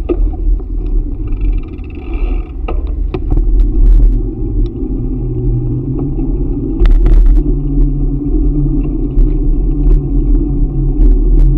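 Wind buffeting the microphone during a bicycle ride, a deep steady rumble, with the bike clattering over bumps several times. A low steady hum comes in about halfway through.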